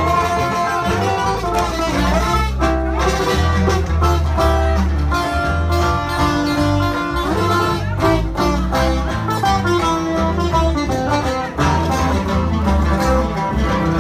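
Live band music: plucked guitar lines over a strong, steady bass.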